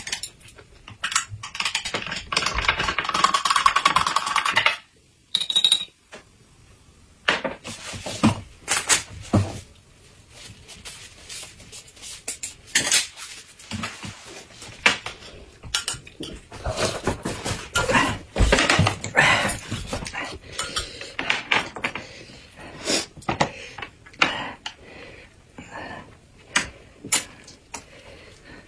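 Tableware at a meal: chopsticks, plates and cups clinking and knocking on a table in scattered clicks, busiest a few seconds in.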